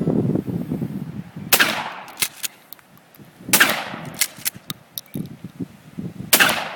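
Mossberg shotgun fired three times, about two to three seconds apart, each loud blast followed by a few short sharp clicks.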